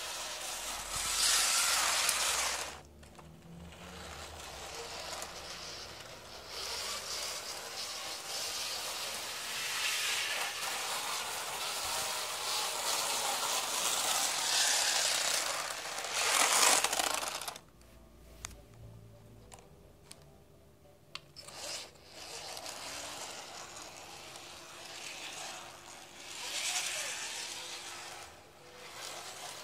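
Tri-ang Hornby Blue Pullman OO-gauge model train running on 50-year-old track: the motor's whir and the wheels rattling over the rails swell and fade as the train comes and goes. Past the middle the sound drops away for about four seconds, with a few light clicks, before the running picks up again; the old track gives it a rough run.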